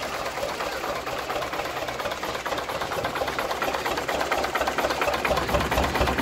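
1930 Slavia single-cylinder stationary diesel engine running steadily and driving an old Osna water pump through a flat belt: a fast, even clatter of ticks, with a deeper low thumping growing stronger near the end.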